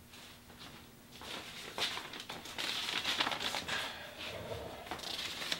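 Rustling and scraping with scattered light clicks, as of something being handled. It builds about a second in and is loudest over the last three seconds.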